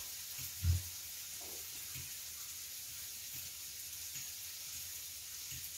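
Tabletop grill sizzling faintly and steadily during a meal, with a dull knock on the table under a second in and a few softer taps of cutlery or dishes.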